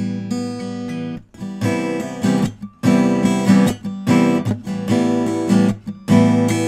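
Steel-string acoustic guitar played through a small USB condenser microphone: a ringing chord for about the first second, then strummed chords in short rhythmic bursts with brief breaks between them.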